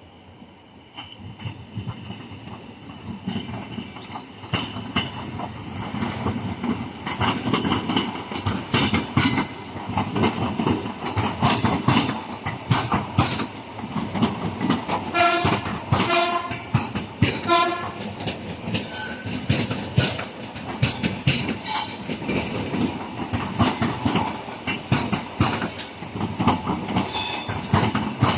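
ED4M electric multiple unit running in on the rails. Its wheels clack over the rail joints in a dense clickety-clack that grows loud a few seconds in. A brief pitched note sounds, broken up into pulses, about halfway through.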